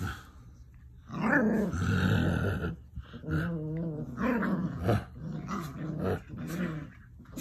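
Belgian Malinois puppies growling at play, a run of growls with short breaks starting about a second in.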